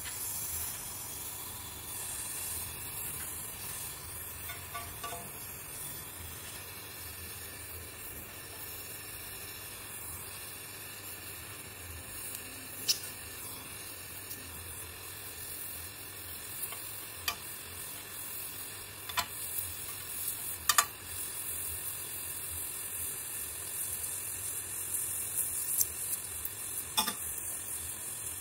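LPG gas torch flame hissing steadily while it heats an aluminium part and melts a homemade cast aluminium filler rod into it, with a few sharp clicks along the way.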